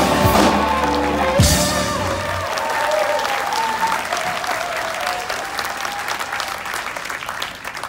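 Live rock band ending a song with a final hit about a second and a half in, the last notes ringing on and fading, while the audience applauds.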